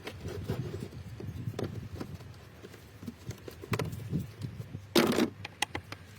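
Handling noise from work on the car's service parts: scattered light clicks and knocks, with one short, louder noisy burst about five seconds in.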